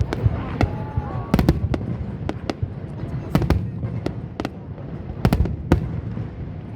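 Fireworks shells bursting, a string of sharp bangs and crackles at irregular intervals, with the heaviest clusters of reports about a second and a half, three and a half and five and a half seconds in.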